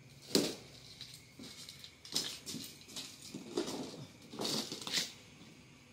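The heavy, glossy hull skin of a deflated inflatable boat being lifted and shifted over cardboard: irregular crinkling rustles and flaps, the loudest about half a second in.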